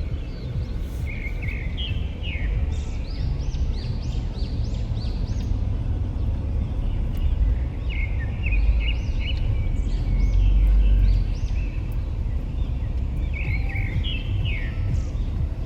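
Birds chirping in short twittering phrases that come back every few seconds, over a steady low rumble.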